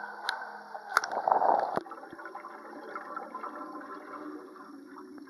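Swimming-pool water splashing loudly for under a second, about a second in, as the microphone goes under the surface; then a steadier, quieter underwater sound of water and exhaled bubbles.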